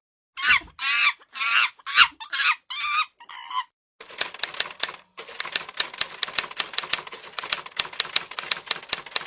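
A chicken clucking, about seven short calls in a row, followed about four seconds in by a fast clatter of typing keys, a few loud strikes a second among lighter ones, with a short pause partway through.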